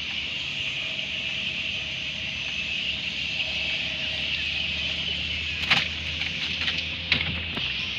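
Steady high-pitched outdoor drone over a low rumble, with a few sharp knocks and clicks near the end as the net and catch are handled in a small boat.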